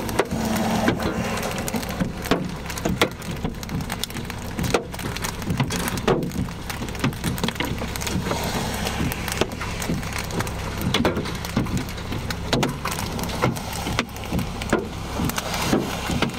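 Large hailstones pounding a car's roof, body and glass, heard from inside the car: irregular sharp bangs, often several a second, over a steady hiss of hail and rain.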